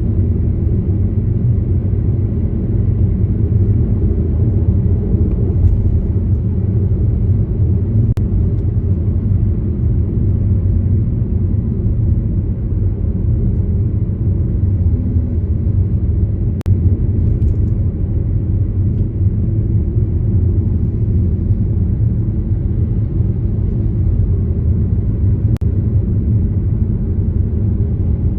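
Car driving along, with a steady low rumble of engine and tyre noise and a faint click now and then.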